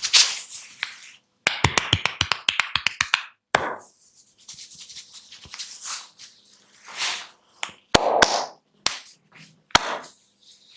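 Barber's hands working a head massage: a quick run of about ten sharp taps and slaps, then hissy rubbing and scratching swishes through the hair, with a few single sharp snaps or cracks.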